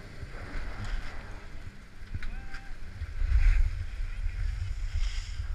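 Wind buffeting the skier-worn camera's microphone, with skis sliding on packed snow. The low rumble grows stronger about three seconds in as the skier gathers speed downhill.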